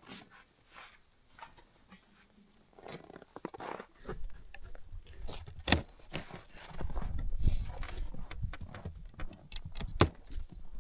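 Scattered knocks, clicks and shuffling of hands-on handling work, with a low rumble starting about four seconds in. Two sharp knocks stand out, one near the middle and one near the end.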